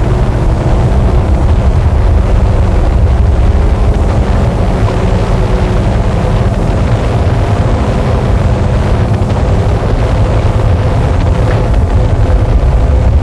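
Noise music: a loud, unbroken wall of distorted noise, heaviest in the low end, with faint held tones in the low-mids and no rhythm or change.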